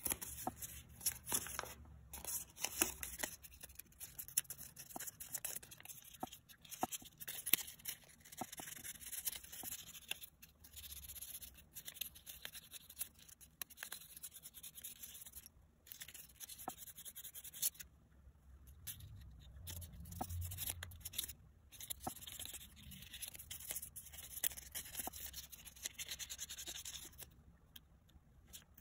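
Fine 1000-grit sandpaper rubbing on a small brass screwdriver shaft, an uneven scratchy hiss in short strokes that stops briefly now and then.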